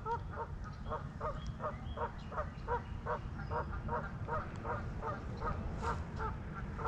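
A goose honking in a rapid, regular series of short calls, about three a second, over a steady low rumble.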